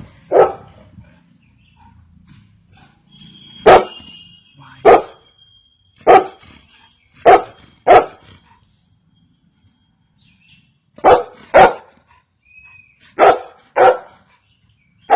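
Golden retriever barking: about ten short single barks, several of them in quick pairs, with irregular pauses of one to three seconds between them.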